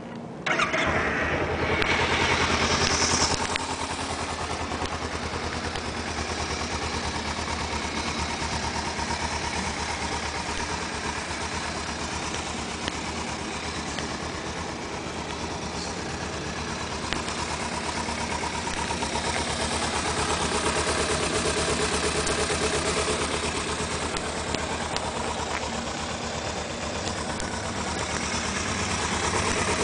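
2013 Kawasaki Ninja 300's parallel-twin engine starting about half a second in, running louder for the first few seconds, then settling into a steady idle.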